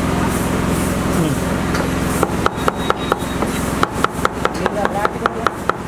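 Large knife rapidly chopping cauliflower and onion on a wooden board, quick regular knocks about five a second that start about two seconds in.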